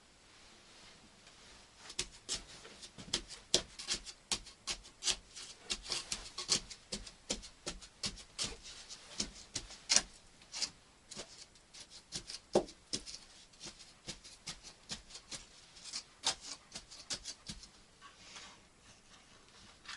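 A run of short, irregular scraping or rubbing strokes, several a second, starting about two seconds in and thinning out near the end.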